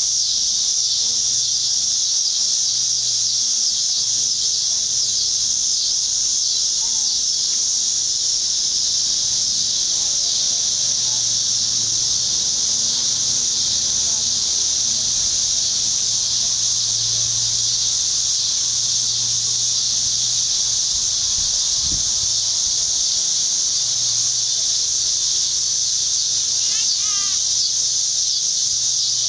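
A steady chorus of insects outdoors: a dense, high-pitched drone at an even level with no breaks.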